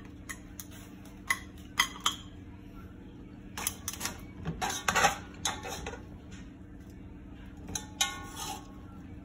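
Metal tongs clinking and scraping against a metal pan while crab legs and shrimp are picked out of it. The clicks come in three clusters, the busiest about four to six seconds in, over a steady low hum.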